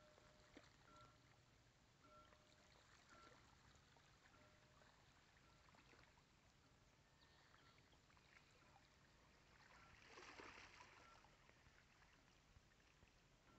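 Near silence: faint lapping of small ripples on calm seawater, with a brief, slightly louder swell of noise about ten seconds in.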